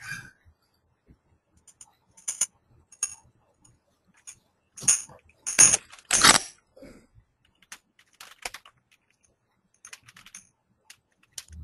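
Computer keyboard typing: irregular, scattered key clicks, with a few louder strokes around the middle.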